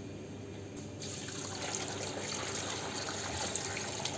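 Water poured in a steady stream into a large aluminium pot of chopped tomatoes and spices, starting about a second in.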